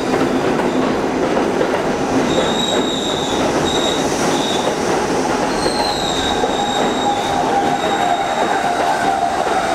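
R68 subway train running past along an underground platform as it leaves the station: a steady rumble of steel wheels on rail, with high-pitched wheel squeal that comes and goes.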